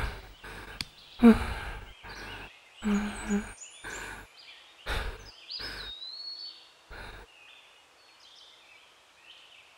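A series of short scrapes and knocks of stones being handled on bare rock, several in the first seven seconds, with birds chirping and whistling in the background; the last few seconds hold only scattered bird calls.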